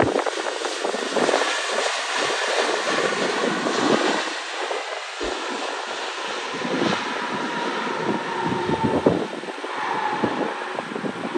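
Boeing 767-300's twin jet engines rushing loudly as the airliner rolls out along the runway just after touchdown, with a faint thin whine in the second half.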